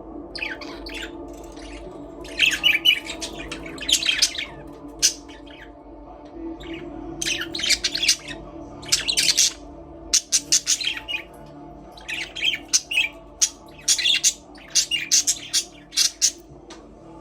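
A flock of budgerigars chirping and warbling, with clusters of short, high, rapid calls coming in bursts, over a steady low hum.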